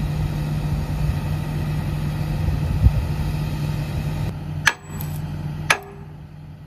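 Tracked excavator's diesel engine running steadily, then dropping away about four seconds in. Sharp knocks with a short ring follow, about once a second.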